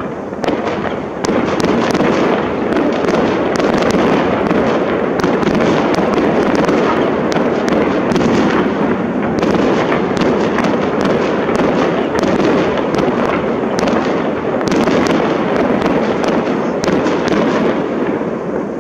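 Aerial firework shells bursting in quick succession: many overlapping bangs and crackles running together into a continuous din, easing off a little near the end.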